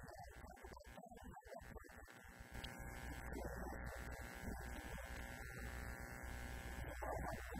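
Steady electrical mains hum and buzz that comes in about three seconds in and stays, with faint, muffled voices underneath.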